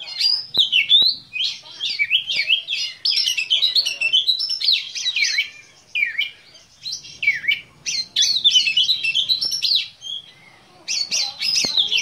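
Caged Oriental magpie-robin of the black-breasted form (kacer dada hitam) singing a fast, varied song of rising and falling whistles and chirps. There are brief pauses about six and ten seconds in.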